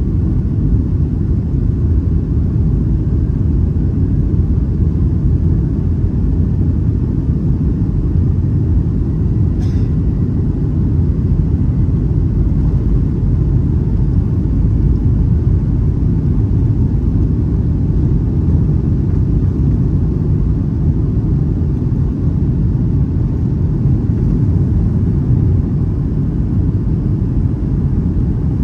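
Steady cabin noise of a Boeing 757 in flight: an even low rumble of engines and airflow heard from inside the cabin, with one faint tick about ten seconds in.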